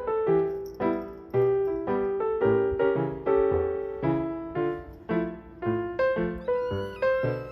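Background solo piano music: a light melody of struck notes, each fading away, at a steady pace.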